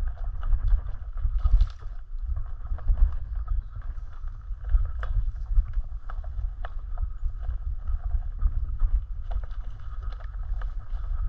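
Mountain bike riding a dirt singletrack: heavy wind rumble on the camera microphone, with frequent clicks and clatters as the bike rattles over bumps.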